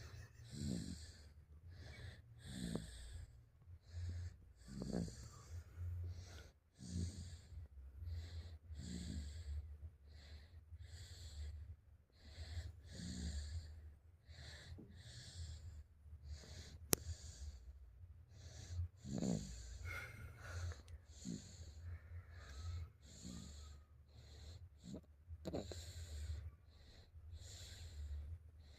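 A sleeping person snoring, a breath roughly every two seconds, over a steady low hum.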